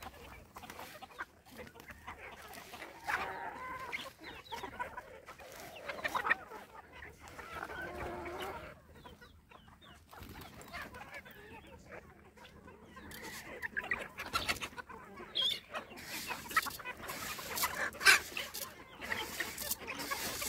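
A flock of feeding hens clucking. Scattered short clicks and rustles grow thicker in the last several seconds.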